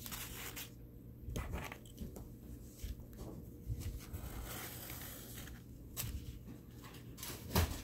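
Pencil scratching on paper while tracing around a folded paper piece, with paper rustling as the pieces are handled. A sharp tap near the end.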